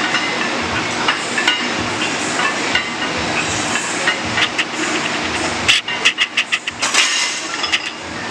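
Loaded barbell being lifted and set down: steady gym background hiss with a few knocks of the iron plates, then a quick run of about seven clanks near the end as the bar comes to rest on the floor.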